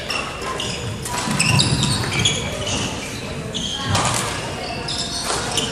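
Badminton shoes squeaking in short, high chirps on a hardwood gym court, with a few sharp racket hits on the shuttlecock and voices echoing in the large hall.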